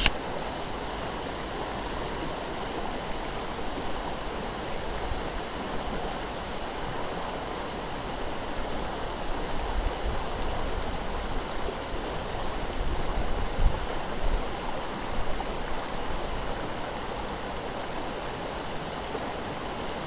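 Steady rushing of a flowing river current, with a couple of brief low bumps about two-thirds of the way in.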